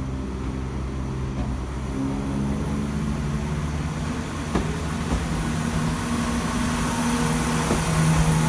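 ScotRail Class 170 Turbostar diesel multiple unit passing close along the platform, its underfloor diesel engines humming. The engine note rises in pitch about two seconds in, and the sound grows louder as the train draws level. A few sharp clicks come from the wheels on the track.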